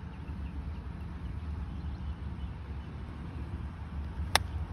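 A golf iron striking the ball once, a single sharp click of the clubface on the ball near the end, over a steady low rumble.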